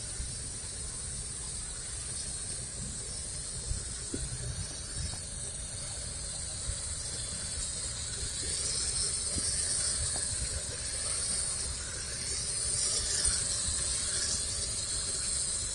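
Small toy quadcopter's motors and propellers whining in flight, the pitch wavering up and down as the throttle is worked while it comes in to land.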